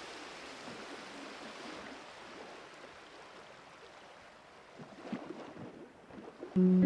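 Steady rushing noise that slowly fades away, with a few faint ticks near the end; acoustic guitar music comes in loudly just before the end.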